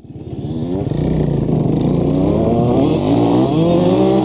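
Dirt bike engines revving as the bikes approach, the pitch rising and falling again and again; the sound fades in from silence over the first second.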